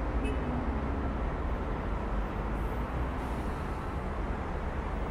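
Steady city traffic ambience: an even rumble of vehicles with no single event standing out.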